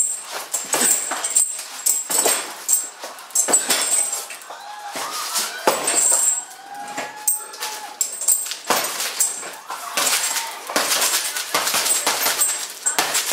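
Boxing gloves punching hanging heavy bags made of plastic-wrapped car tyres: a quick, irregular run of slaps and thuds in flurries.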